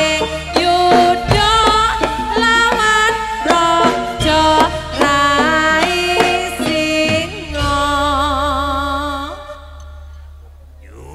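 Jaranan dance accompaniment music: a pitched ensemble with frequent struck notes over a deep steady bass and a wavering melody line. The music dies away about nine seconds in.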